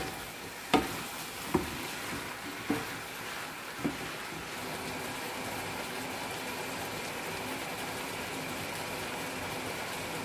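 A wooden spatula stirring chicken and diced chayote in a wok, knocking against the pan four times in the first four seconds, then a steady sizzling hiss from the pan once the stirring stops.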